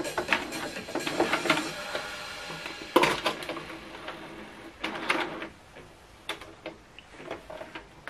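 HP DeskJet 3750 printer's mechanism whirring and clicking, with a sharp plastic snap about three seconds in as the front cartridge access door is opened. Fainter clicks of handling follow.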